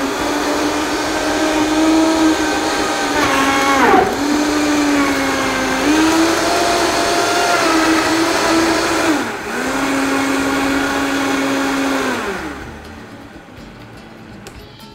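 A Vitamix high-speed blender's motor runs, pulverising chunks of watermelon with mint leaves, cold water and ice cubes. Its steady pitch dips and recovers twice, about four and nine seconds in, then winds down near the end as the speed dial is turned down.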